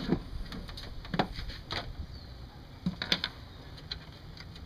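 Light, scattered clicks and clinks of hand tools, the removed bolt and the plastic cold air intake being handled on a car engine: one about a second in, another shortly after, and a quick cluster around three seconds.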